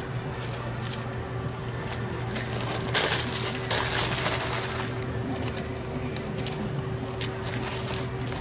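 Sandwich wrapping paper crinkling and rustling as a sub is rolled up in it by hands in plastic gloves, in irregular crackles that are loudest about three and four seconds in. A steady low hum runs underneath.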